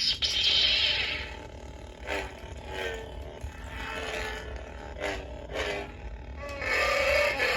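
Toy Jedi lightsaber's electronic sound effects from its built-in speaker: a buzzing hum broken by a series of swing and clash bursts, about one a second, loudest near the start and again near the end.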